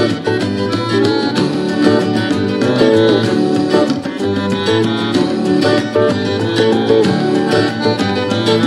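Instrumental passage of an acoustic folk-style song: plucked guitar over double bass, with accordion and percussion, playing steadily without vocals.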